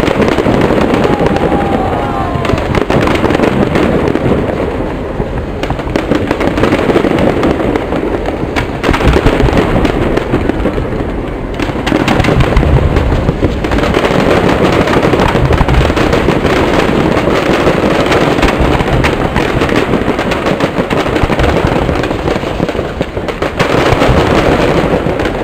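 A fireworks display: a dense, continuous barrage of rockets and aerial shells bursting, many bangs and crackles in quick succession, swelling and easing every few seconds.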